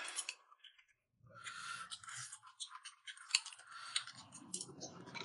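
Eating at a table: chewing, with irregular small clicks of chopsticks against bowls and plates. The sounds start after a second or so of silence.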